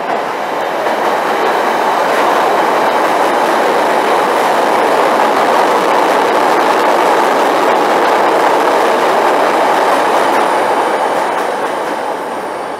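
Chicago 'L' rapid-transit train passing on the steel elevated track overhead: loud, steady noise of wheels on rails and the steel structure, building over the first couple of seconds and easing off slightly near the end.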